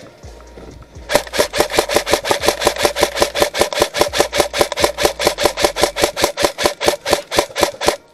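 Airsoft electric rifle firing on full auto at close range: a steady, loud mechanical rattle of about seven shots a second, starting about a second in and cutting off sharply just before the end.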